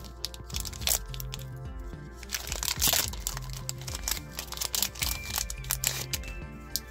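Foil wrapper of a One Piece Card Game booster pack crinkling and being torn open, with a loud burst of crackling about three seconds in, over steady background music.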